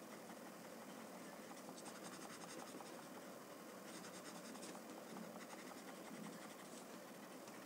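Paper blending stump rubbing graphite shading into drawing paper: faint, quick scratchy strokes in a few short spells.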